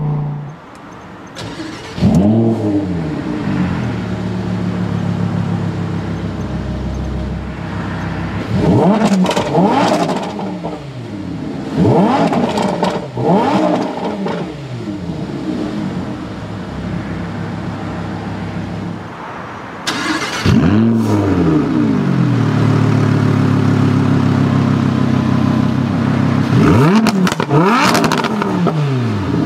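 Lamborghini Huracán LP610-4's 5.2-litre V10, fitted with the optional racing exhaust, starting in Strada mode. It starts with a sharp flare about two seconds in, settles to idle, and is blipped several times. It runs louder and steadier from about two-thirds of the way through, with more blips near the end.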